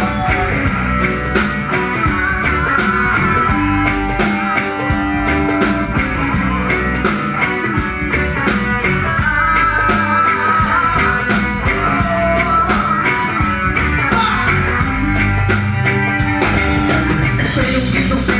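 A live band playing, with guitar and a drum kit keeping a steady beat.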